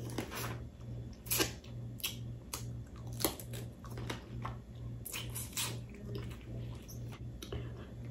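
Close-up mouth sounds of eating crab-leg meat: wet chewing and lip smacking, with many short sharp clicks scattered irregularly.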